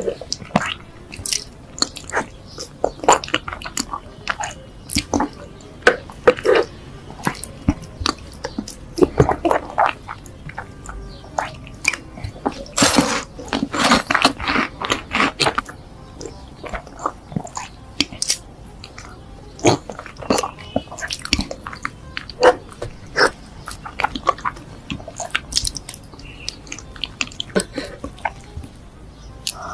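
Close-miked chewing of soft Nutella-covered cake: wet mouth sounds and many sharp, irregular clicks, with a denser stretch of chewing about halfway through.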